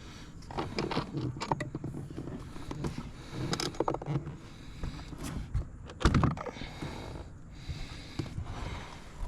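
Hands working plastic car-door trim: scattered clicks and scrapes of plastic parts being pried and handled, with one louder knock about six seconds in.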